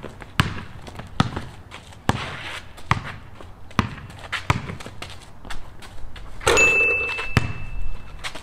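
Basketball dribbled on a concrete court, a sharp bounce a little more than once a second. Near the end comes a louder rushing burst and a steady high tone held for nearly two seconds.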